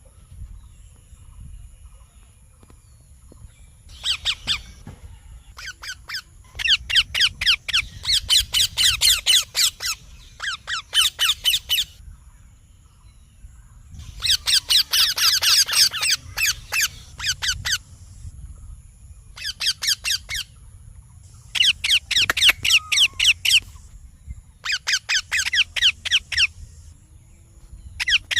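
Young Indian ringneck parakeet calling: rapid trains of sharp, high squawking chirps, many a second, in repeated bursts of one to a few seconds with short pauses between them.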